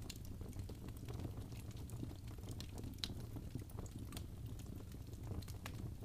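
Wood logs burning in a fireplace: irregular crackles and pops over a low, steady rumble of the flames, with one sharper pop about three seconds in.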